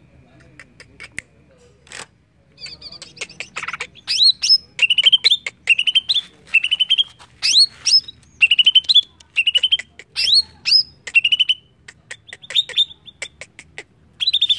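Male green leafbird (cucak ijo) singing: after about two seconds of near quiet, a fast, dense run of sharp chirps and short up-sweeping whistled notes.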